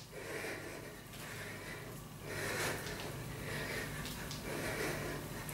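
A woman breathing hard and fast from exertion during quick cardio reps, in repeated audible puffs.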